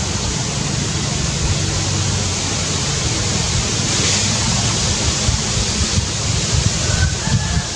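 Steady rushing wind on the microphone with leaves rustling, turning to uneven low buffeting gusts near the end. A faint short high call sounds near the end.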